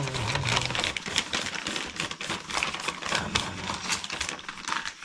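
Soft black plastic nursery pots crinkling and rustling as they are handled, opened and filled by hand with a soil and compost mix, a fast irregular crackle throughout.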